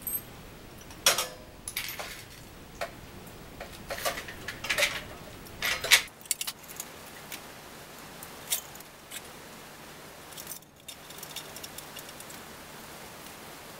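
Metallic clinking and rattling as a bicycle's rear wheel is handled and fitted back into the frame, the axle and hub parts knocking against the metal frame. A quick run of sharp clicks through the first six seconds, then only a few scattered clicks.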